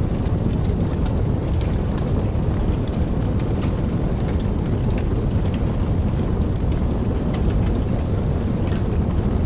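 Campfire burning: a steady low rumble of flames with frequent small crackles and pops scattered throughout.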